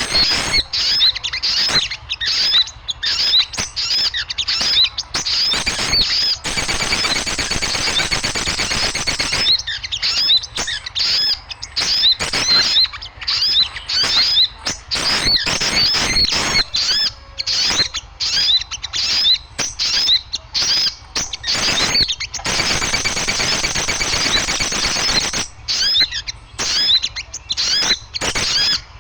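Noisy chatter of many small birds: rapid high chirps repeating several times a second. Twice it thickens for a few seconds into dense overlapping chorus.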